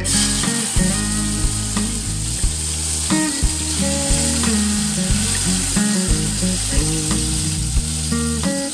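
Marinated pork chops sizzling and frying in hot oil in a pan; the sizzle starts as the first chop is laid in and holds steady. Background music plays underneath.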